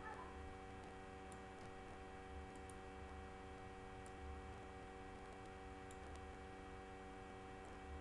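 Faint computer mouse-button clicks, about half a dozen spaced irregularly, over a steady electrical hum.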